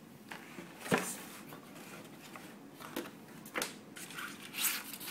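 A cardboard pistol box being handled and opened by hand: the lid lifted and the box and its foam insert rustling, scraping and knocking in a few short, sharp sounds, the strongest about a second in.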